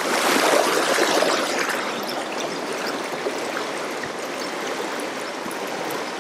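Shallow river rapids rushing over rocks: a steady hiss of flowing water, a little louder for the first couple of seconds.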